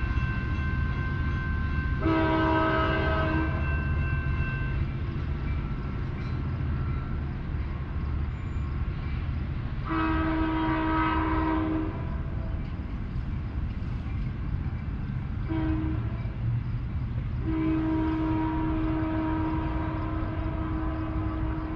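Locomotive horn sounding long, long, short, long, the grade-crossing signal, over the train's steady low rumble.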